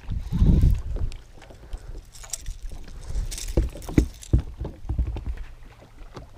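Low wind rumble on the microphone, with a few sharp knocks, as of gear or a hull on a small boat, about three and a half to four and a half seconds in.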